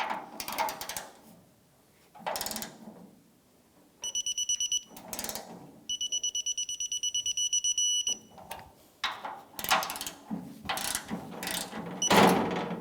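Torque wrench ratcheting on the tailgate latch's Torx mounting screws, with rapid high-pitched electronic beeping in several spells as the wrench signals that the 26 foot-pound torque setting is reached.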